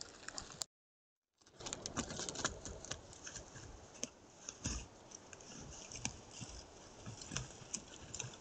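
Irregular crackling and rustling of dry grass and twigs as a large animal moves and forages through parched vegetation, with many small sharp clicks. The sound cuts out completely for under a second about a second in.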